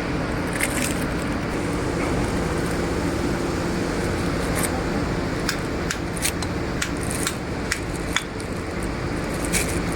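Steady drone of industrial plant machinery with a low hum, with scattered light clicks and taps, like tools and metal parts being handled during bearing work, about one or two a second in the second half.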